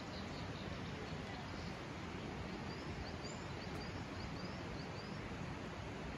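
Small birds chirping repeatedly in short high calls, thickest in a run about halfway through, over a steady outdoor hiss.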